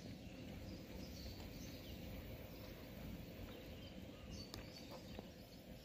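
Faint outdoor background noise with a few light bird chirps; the slow-moving battery tram itself is not distinctly heard.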